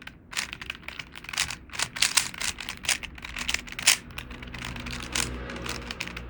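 Plastic Rubik's Cube being turned quickly by hand: an irregular run of sharp clicks and clacks, several a second, as its layers snap round.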